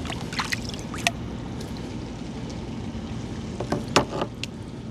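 Water splashing and trickling, with a few sharp knocks and clicks, as a hooked fish is brought up over the side. Under it runs a steady low boat-engine hum.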